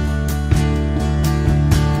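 Background music: an instrumental stretch of a song, with guitar and regular beats and no singing.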